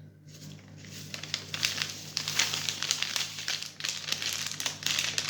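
A packet of pudding powder crinkling and rustling as the powder is poured out into a pan, starting shortly after the start and going on in a busy crackle of small clicks until just before the end.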